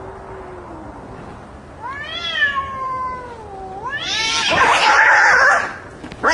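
Cats fighting: a drawn-out low yowl rises into a higher, wavering caterwaul about two seconds in, then breaks into a loud, harsh screeching and hissing outburst about four seconds in, with another short burst at the very end.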